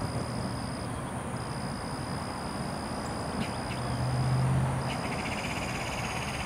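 Outdoor ambience of insects: a steady high buzz broken by two short gaps, joined about five seconds in by a fast pulsing chirp, over an even background rumble. A low hum swells briefly around four seconds in.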